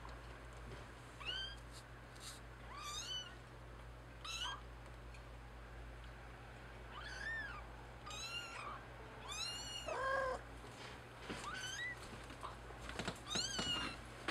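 Very young kittens mewing again and again: about a dozen short, high-pitched cries, each rising and then falling in pitch, with one lower, fuller call about ten seconds in. A faint steady low hum sits underneath.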